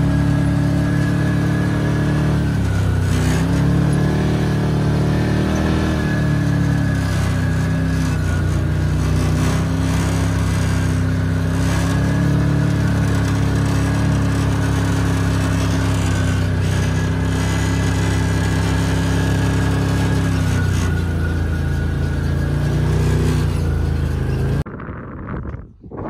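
Side-by-side buggy's engine running as it drives over sand, its note rising and falling a little with the throttle. It cuts off suddenly near the end.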